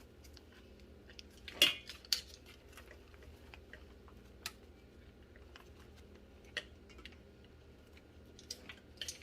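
Kitchen utensils clinking and knocking against a mixing bowl in scattered, irregular strikes, the loudest two just under two seconds in.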